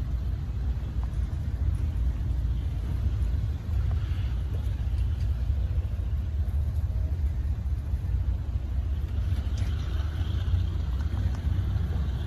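Steady low rumble of a double-stack intermodal freight train's container cars rolling past, with faint higher squeaks near the end.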